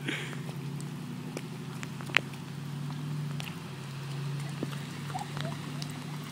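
A small child's bare feet splashing through a shallow rain puddle on grass, with scattered small clicks and one sharp click about two seconds in, over a steady low hum.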